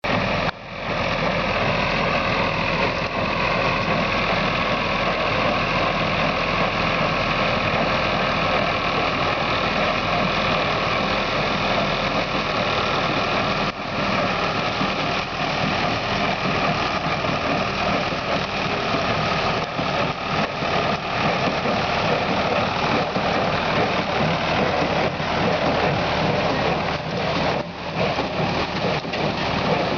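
A New Holland baler at work baling sugarcane trash, with its tractor's engine running: a steady, continuous machine noise with a brief dip about half a second in and another midway.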